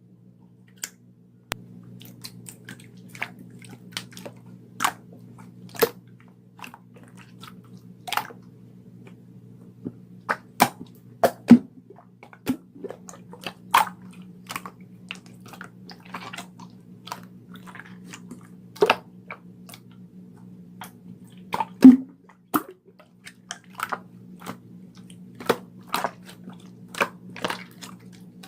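Clear slime being pressed and worked by hand, giving irregular sharp clicks and wet pops, a few of them much louder than the rest. A steady low hum runs underneath from about a second and a half in.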